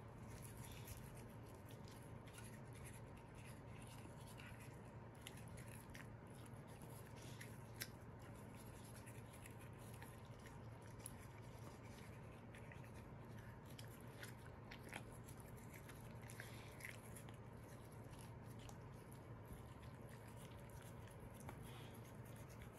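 Faint, scattered clicks and scrapes of a small dog toothbrush working over a corgi's teeth, over a steady low hum.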